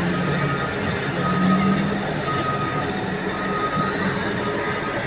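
Back-up alarm beeping at a steady pace, about four beeps a second apart, over the diesel engine of heavy mining equipment running at a steady speed.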